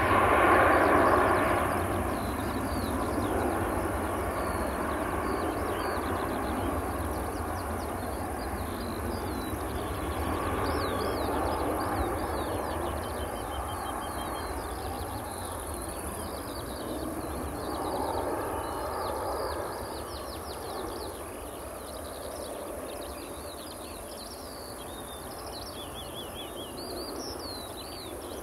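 Boeing 757-300's jet engines at take-off thrust: a wide rumble, loudest about a second in, that slowly fades as the airliner climbs away. Small birds chirp throughout.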